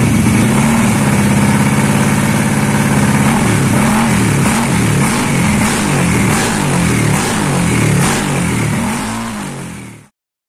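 Yamaha NMAX scooter engine running: a steady idle, then from about three seconds in the throttle is blipped up and down about twice a second, and the sound fades out near the end.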